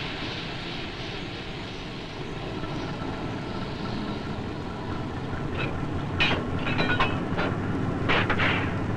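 A train rolling by with a steady rumble. A high hiss fades away over the first few seconds, then a string of sharp clanks from the wheels and cars comes in the second half.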